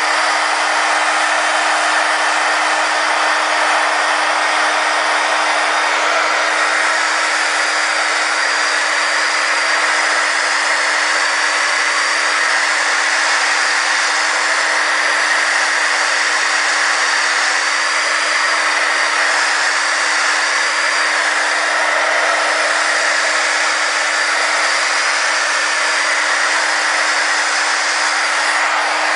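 Embossing heat gun blowing steadily, a continuous rush of hot air with a steady hum under it, as it melts and sets embossing powder.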